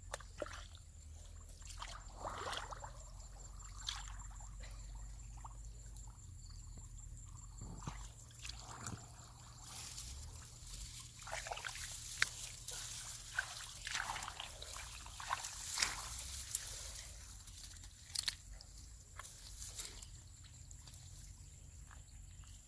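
Water sloshing and splashing in irregular bursts, busiest in the middle stretch, with scattered sharp clicks.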